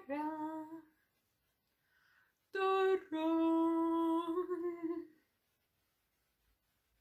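A woman's wordless voice: a short rising vocal sound at the start, then, about two and a half seconds in, a long steady held note lasting a couple of seconds.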